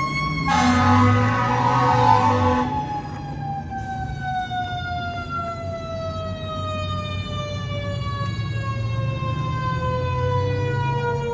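Emergency vehicle siren winding slowly down in pitch from a high wail, over a low engine rumble. A loud hiss runs for about two seconds near the start.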